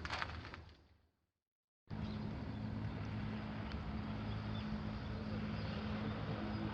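Sharp crackling that fades out within the first second, a break of dead silence, then a steady low engine drone over outdoor background noise.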